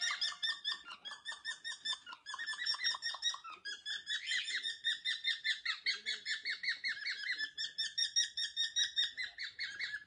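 Cockatiels chirping in quick runs of short, high calls, a few a second, running into a more continuous warbling call from about four seconds in.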